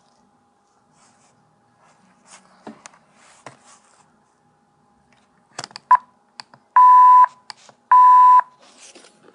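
Electronic censor-style bleeps: one short beep, then two loud half-second beeps of one steady pitch about a second apart, after some light clicks and handling. They are the bleep that stood in for swear words.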